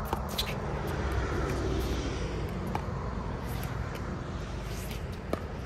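Pickleball paddles hitting the ball during a rally: a few sharp pops spaced a second or more apart, over a steady low rumble.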